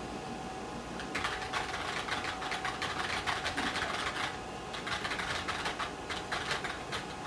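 Typing on the IBM PS/2 Model 25's keyboard: a quick run of keystroke clicks starting about a second in, with a short pause around the middle.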